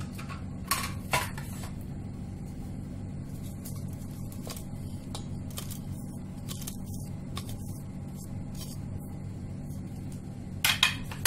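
A steady low hum, with a few sharp taps and clicks as spices are added to a bowl of meat: two about a second in and a short cluster near the end.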